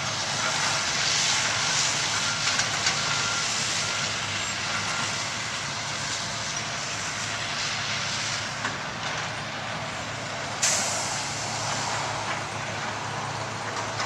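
Heavy diesel construction machinery running steadily, with a sudden sharp hiss of air about ten seconds in.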